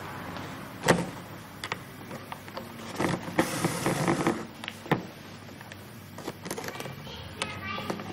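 Leather being hand-stitched: needles pushed through the leather and thread drawn through it, with a rasping hiss as the thread is pulled tight about three seconds in. A few sharp clicks come from the needles and tools, the loudest about a second in.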